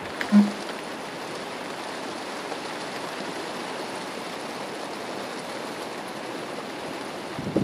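Heavy rain falling in a steady hiss during a thunderstorm. A short, loud blip comes about half a second in.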